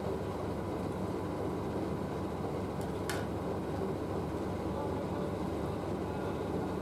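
Steady low background rumble, even throughout, with a single brief click about three seconds in.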